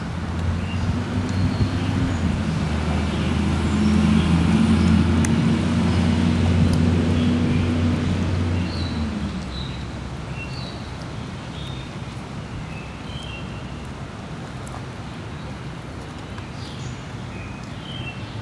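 A motor vehicle's engine passing by, growing louder over the first few seconds and fading out about nine seconds in. Birds chirp now and then.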